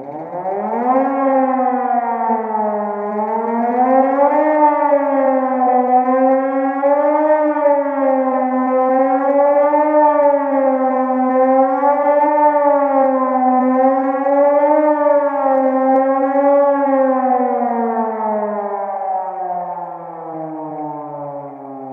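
Mechanical rotor siren winding up from a low pitch into a loud wail that rises and falls every two to three seconds, then winding down with a slowly falling pitch over the last few seconds.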